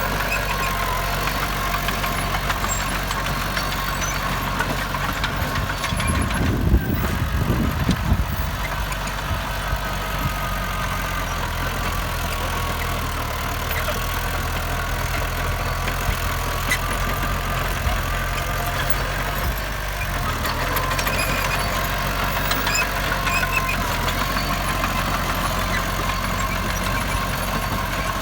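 Heavy diesel engine of earthmoving machinery running steadily, with a brief louder low rumble about seven seconds in.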